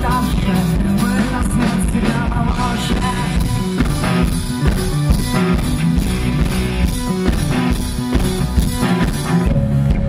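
Rock band playing live: drum kit, guitar and keyboards in a mostly instrumental passage, with a melody line over the band in the first few seconds.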